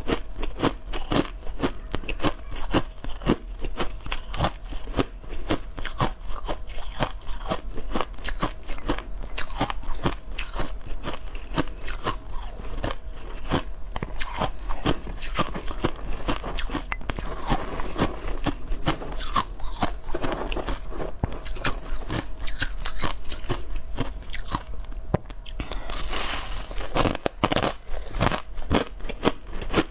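Crushed ice being bitten and chewed close to the microphone, with rapid, irregular crunches several times a second.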